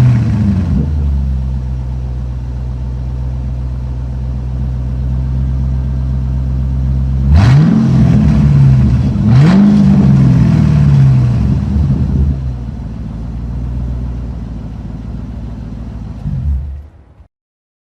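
Ford Mustang engine settling from its start-up flare into a steady idle. It is blipped twice, a couple of seconds apart, each rev rising then falling back. It idles on, then is switched off near the end and cuts to silence.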